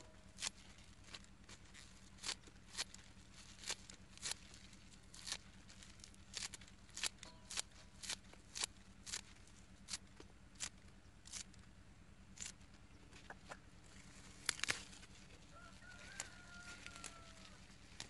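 Scissors snipping grass and greens into small pieces: sharp snips at an uneven pace, about one to two a second. A faint drawn-out bird call comes near the end.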